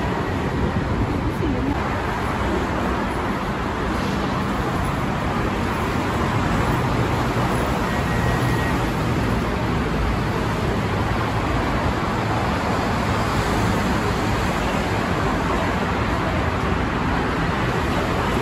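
Steady hum of busy road traffic, cars and buses running past without letting up.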